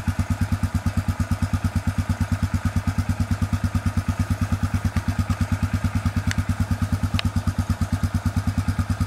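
ATV engine idling with a steady, even pulsing beat of about eight a second. Two light clicks come about six and seven seconds in.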